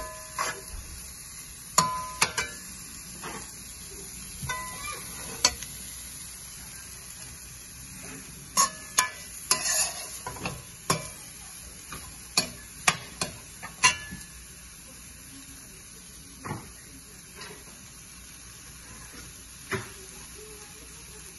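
Stir-frying in a pan: a utensil stirring and scraping the food, striking the pan in clusters of sharp clinks over a steady sizzle. The knocks come thickest in the middle and grow sparse near the end.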